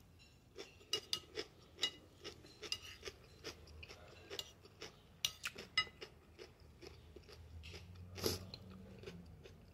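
Close-up mouth sounds of a person chewing food with lips closed: an irregular run of small wet clicks and crunches, with one louder click a little past eight seconds in.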